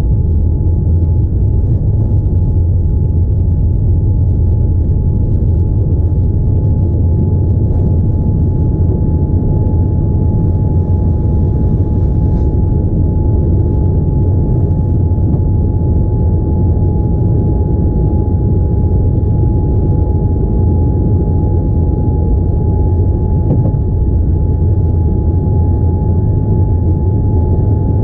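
Boeing 787-9 passenger cabin noise: a steady low rumble with a constant high hum over it, unchanging throughout.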